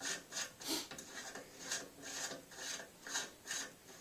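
A2 flash hider being spun by hand onto the threaded muzzle of an AR-15 barrel: a run of short scratchy rasps, about two or three a second, as the fingers turn it on the threads.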